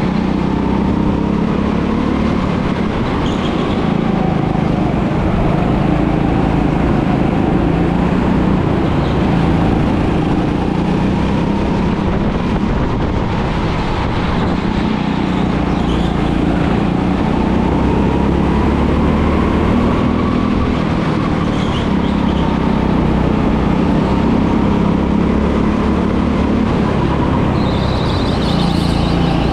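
Go-kart engine running continuously while driving, its pitch drifting gently up and down with the throttle.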